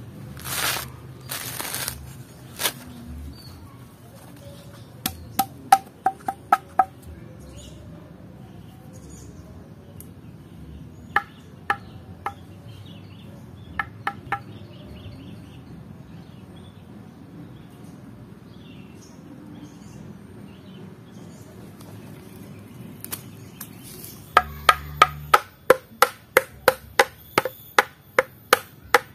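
Coconut husk fibres tearing as the husk is pulled off by hand, then sharp knocks of a hafted stone tool striking a husked coconut: a few short groups at first, then a steady run of about two strikes a second near the end.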